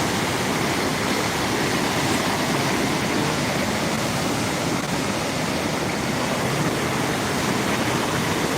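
Floodwater flowing fast, a steady, even rush of water.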